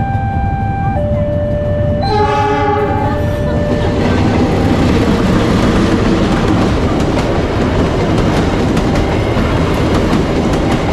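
Level-crossing alarm sounding its two alternating chime tones, and a train horn blowing for about a second and a half some two seconds in. From about four seconds in the Siliwangi passenger train passes at the crossing, its wheels clicking over the rail joints, and the sound of the train drowns out the alarm.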